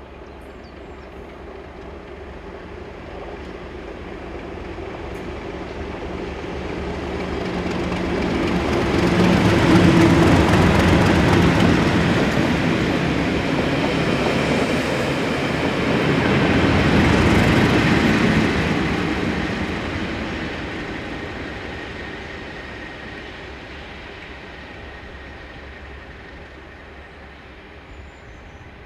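A pair of Class 37 diesel-electric locomotives, each with an English Electric V12 engine, passing with a train. The sound builds steadily and is loudest about ten seconds in, as the leading locomotive goes by. It rises again about seven seconds later, as the second locomotive on the rear passes, then fades away.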